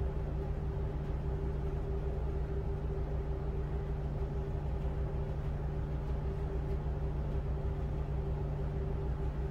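Tugboat's diesel engines running steadily while towing a loaded coal barge: a constant low drone with a steady hum over it.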